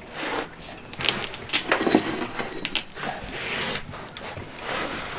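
Handling noise from a person shifting about and moving things on the floor: a handful of light knocks and clicks, most of them between one and three seconds in, over rustling.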